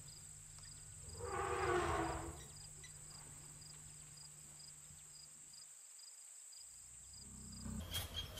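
Insects buzzing in a steady high whine, with a second insect chirping in short even pulses about two and a half times a second. About a second in, a louder animal call lasts about a second.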